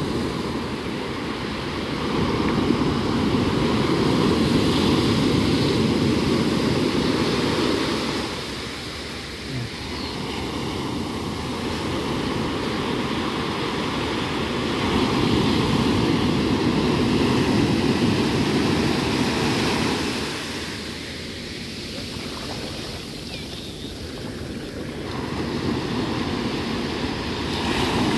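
Ocean surf breaking and washing up a sandy beach in a steady rush, swelling loud and easing off in long surges as the waves come in and draw back.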